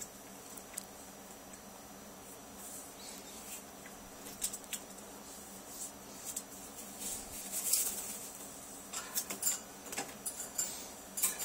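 Blue-crowned conure's claws and beak scratching and clicking as it climbs the curtain cord, with denser rustling near the end as it stretches across to grip the cage bars. No calls.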